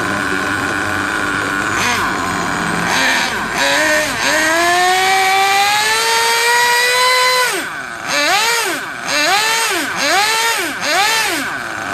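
Nitro RC car engine running at a steady idle, then revved in a long rise that holds high for a few seconds and drops, followed by several quick throttle blips near the end while its carburettor is being tuned.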